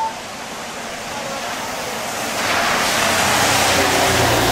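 Rain falling, a steady hiss that swells louder a little past halfway and stays loud, with a low rumble coming in under it. A brief high beep sounds right at the start.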